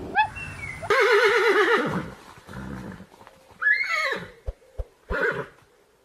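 Horse whinnying: a long quavering whinny starting about a second in, followed by two shorter falling calls.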